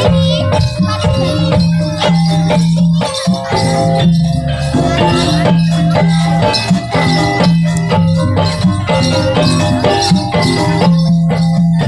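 Live jaranan accompaniment music: drums and pitched metal gamelan-style percussion playing a busy, continuous rhythm, over a low tone held for a second or two at a time.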